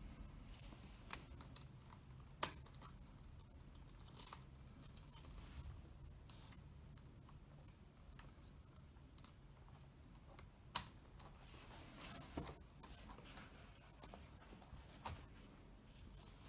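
Steel leg irons, chain and padlocks clinking and clicking as they are handled and locked together around the ankles. Scattered light metallic clicks, with two sharp, loud clacks: one about two and a half seconds in, one near eleven seconds.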